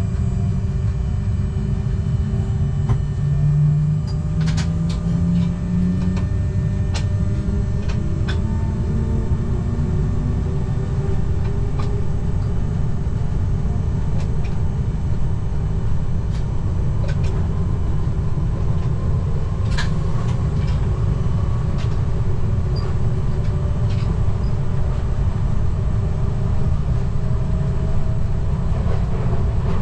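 Z 20500 electric train running, heard from the cab: a steady rumble of wheels on rail, with a whining tone that slowly rises in pitch through most of the stretch as the train gathers speed. Scattered sharp clicks cut through now and then.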